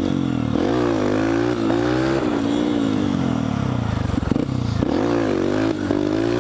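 Honda CRF150F dirt bike's single-cylinder four-stroke engine revving up and down repeatedly, the pitch dropping briefly about four seconds in before climbing again.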